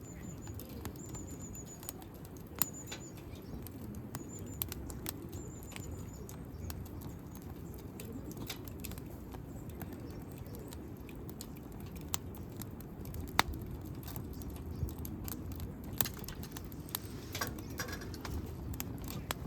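Wood campfire burning with irregular sharp crackles and pops over a low steady rush. In the first few seconds there are several short, high chirps.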